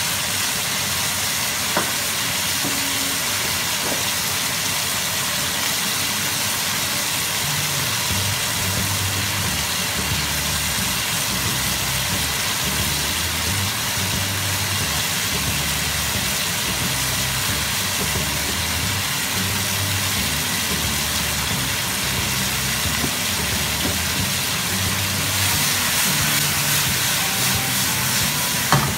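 Chicken and shiitake mushrooms sizzling steadily in a hot wok over a gas flame, with a low rumble underneath. The sizzle grows louder near the end, followed by a single click.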